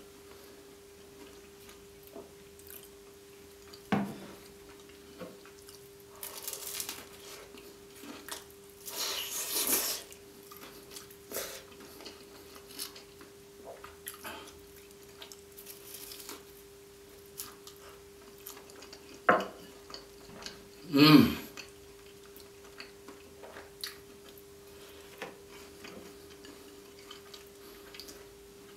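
Close-up eating sounds of a cheesy meat pie with flaky pastry: scattered bites, chewing and wet squelches, with knocks from a ceramic sauce bowl being handled. The loudest sound, a sharp knock, comes about two-thirds of the way in.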